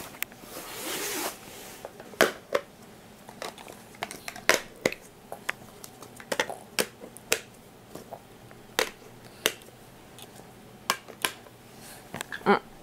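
Irregular sharp clicks and light taps, about one or two a second, with a short rustle about half a second in.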